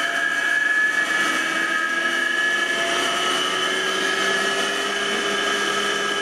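Electric motor run by a Powtran variable-frequency drive, speeding up as the drive frequency is raised from about 66 Hz to 103 Hz: a steady whine of several tones that slowly rise in pitch.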